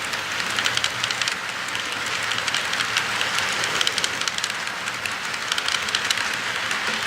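HO scale model diesel locomotive running along the track, a steady rolling whir with many small irregular clicks from the wheels on the rails.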